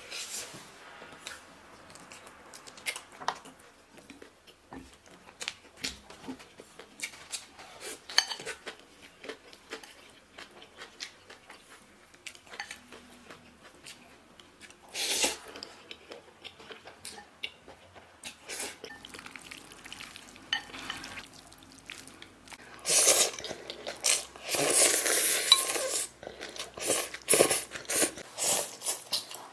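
Eating noodles and roast chicken. Utensils click against a bowl in scattered short taps, with chewing between them. A denser noisy stretch of a few seconds comes near the end.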